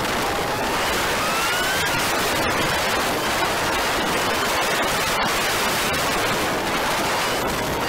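Loud, steady rush of wind over a moving camera's microphone at road speed, with a faint rising whine in the first two seconds.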